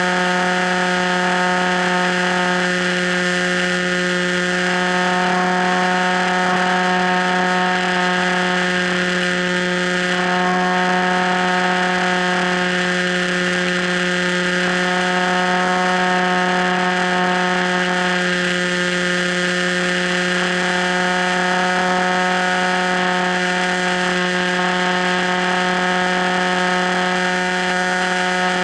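Electric motor and propeller of an FPV Raptor model plane running at a steady throttle, a constant whine with a steady pitch that does not rise or fall.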